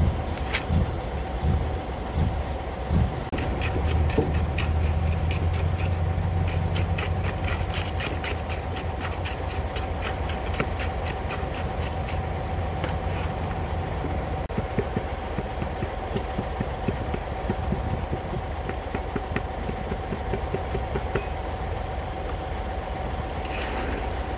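Fresh concrete compacted in a cylinder test mould with a tamping rod: a quick run of sharp, evenly spaced strikes through the first half, sparser later, after a few dull thumps at the start. A diesel engine runs steadily behind it with a constant whine, louder through the first half.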